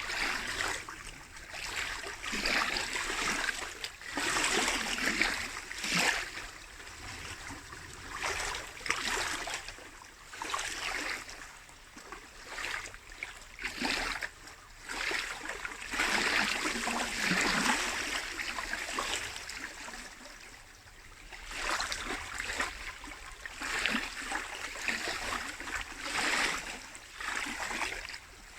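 Small lake waves lapping and splashing at the shore, coming in irregular surges every second or two.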